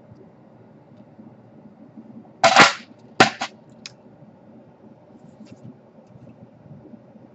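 Two sharp snaps of plastic being cut, about two and a half seconds in and again a moment later, the second followed closely by a smaller snap and a faint tick: the plastic wings of the laptop power jack's part being cut off so that it fits.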